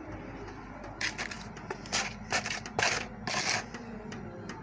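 A run of short scraping and rustling handling noises, starting about a second in and stopping before the end.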